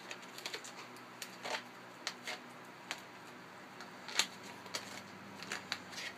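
Latex twisting balloons being handled while their knots are tied together by hand: a scattered run of faint, short squeaks and rubs of rubber, the sharpest click about four seconds in.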